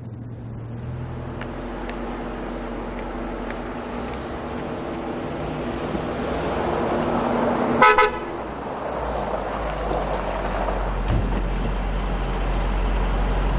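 A black Chrysler 300C saloon drives up with its engine running, slowly growing louder, and gives one short horn toot about eight seconds in. Its engine then runs on with a low rumble as it pulls up.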